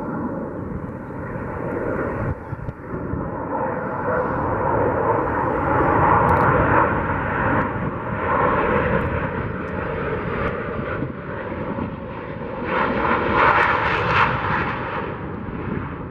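Jet engine roar of an EA-18G Growler's twin turbofans on landing approach. The roar is continuous and swells twice as the jet comes in, about six seconds in and again after about thirteen seconds.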